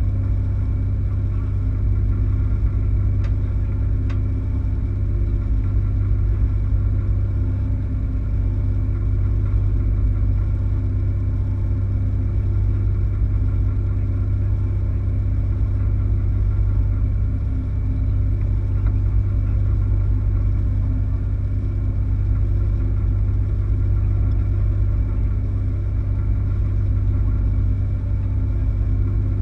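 A sailing yacht's inboard engine running at a steady speed, heard as an even low drone through the hull, with a couple of faint clicks about three and four seconds in.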